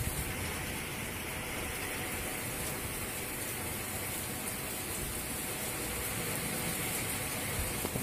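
Heavy rain falling steadily, an even unbroken hiss.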